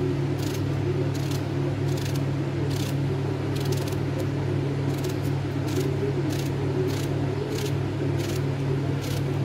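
A knife slicing through raw eggplant held in the hand, making short crisp cuts about twice a second, over a steady low hum.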